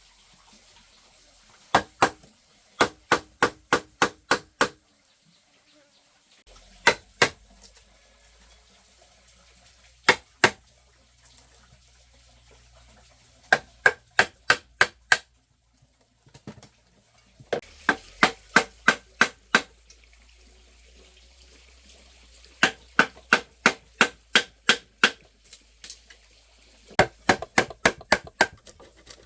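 A tool striking bamboo in quick runs of two to nine blows, about four a second, each blow sharp with a short ringing tone, with pauses of a few seconds between runs.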